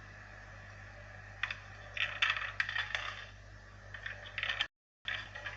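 Coins clinking and rattling in a vending machine, a quick run of sharp metallic clicks over about three seconds over a steady low hum. The sound drops out completely for a moment near the end, then the clinking resumes briefly.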